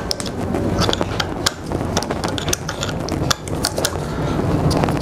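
Irregular metallic clicks and taps of a small wrench being worked on a fitting at the fuel tank opening of a BMW K100 motorcycle, loosening it.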